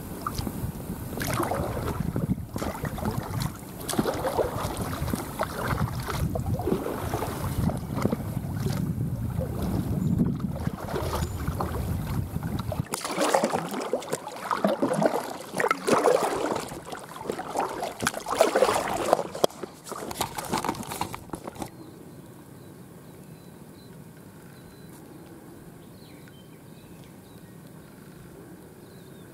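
An inflatable kayak being paddled, with wind gusting on the microphone and paddle splashes in the water, loud and uneven through the first two thirds. For the last third it drops to a quieter steady background with faint high bird chirps.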